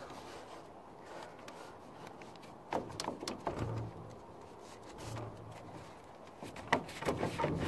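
Rubbing and a few light knocks from hands pressing a patch piece into place on an aluminum shed roof: a small cluster of knocks about three seconds in and a few more near the end.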